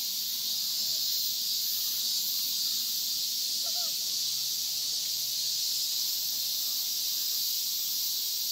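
Cicadas buzzing in a dense chorus: a steady, high-pitched hiss that does not let up.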